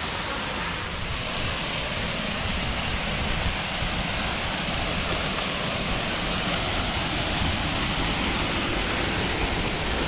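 Waterfall pouring from a rock ledge into a plunge pool: a steady rush of falling water, growing slightly louder as it goes on.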